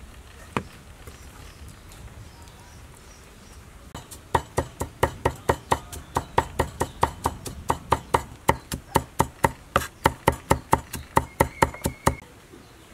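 Cleaver chopping garlic on a wooden chopping block: rapid, even strokes at about five a second, starting about four seconds in and stopping shortly before the end.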